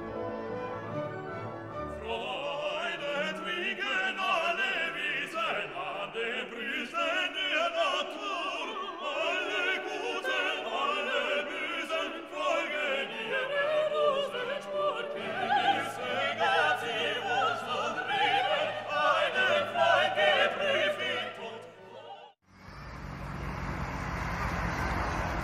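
Background music: an orchestral opening leads into operatic singing with orchestra, which cuts off about 22 seconds in and gives way to a steady rushing noise.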